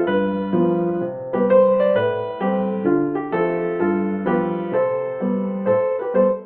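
Background piano music, a steady stream of notes with no speech.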